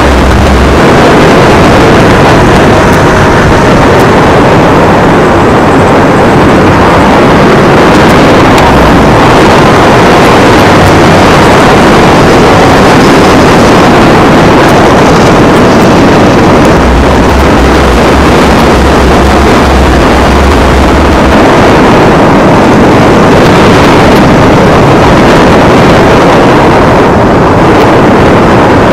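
Loud, steady wind and road noise of an electric scooter being ridden along a street, with traffic passing alongside.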